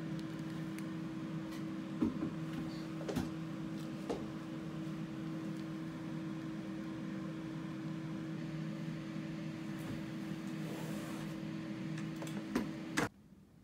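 Steady low machine hum of a small room, with a few soft clicks and knocks; it cuts off abruptly near the end.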